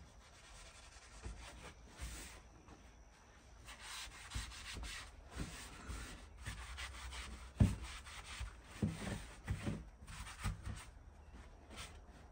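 A Mr. Clean Magic Eraser scrubbing crud off a door: repeated uneven rubbing strokes, with a few low knocks, the loudest a little past halfway.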